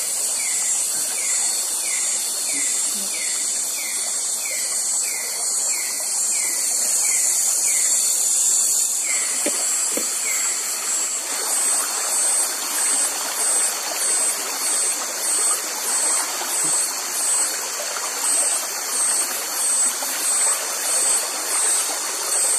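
Night insect chorus of crickets and other insects, a dense steady high shrilling over river water rushing. A repeated falling chirp sounds about one and a half times a second and stops near the middle, after which a pulsing high call keeps a similar beat over the chorus.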